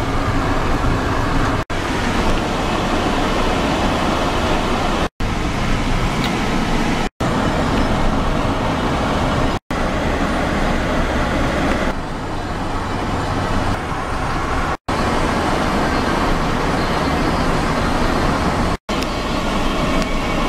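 Steady road noise of a moving car heard from inside the cabin, tyre and engine noise without a break in pitch. Six short drops to silence come at the joins between clips.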